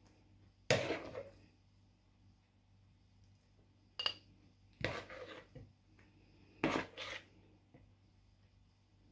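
Spoon scraping wet fish-roe mixture from a mixing bowl and knocking against a glass jar as it is filled, about five separate scrapes and clinks. The one near the middle gives a brief high ring.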